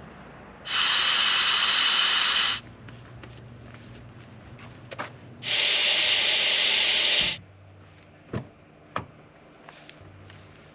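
Air hissing out of a pickup truck's tyre valves in two steady bursts of about two seconds each, first at a rear tyre and then at a front tyre, as the tyres are let down. A few light knocks near the end.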